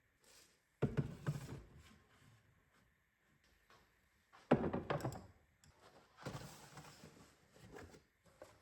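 Kitchen items being handled and set down in a cabinet: three main thunks, about a second in, around four and a half seconds and around six seconds, each followed by lighter knocks and rattling.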